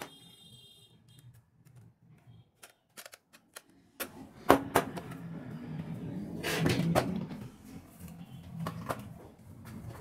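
Handling noise from a plastic alarm control panel and its cable: scattered clicks and knocks as it is turned over and set down on a table, the loudest knock about halfway through.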